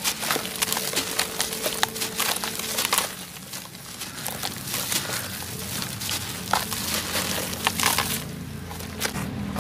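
Dry, crusty earth crushed and crumbling under a hand: irregular sharp crunches and crackles, a few louder snaps among them, over a low steady hum.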